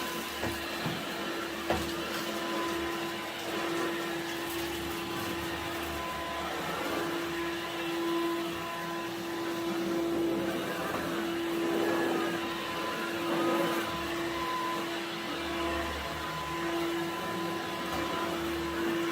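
Bosch Readyy'y Serie 2 20V cordless stick vacuum running steadily on carpet, a constant motor hum under the suction noise. There are a few light clicks in the first two seconds.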